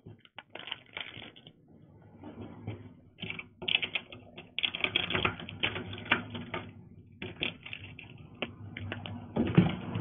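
Rapid, irregular clicking and clatter, like keys being typed: a few scattered clicks at first, a dense run from about three seconds in, a short gap, another run, and a single heavier knock near the end.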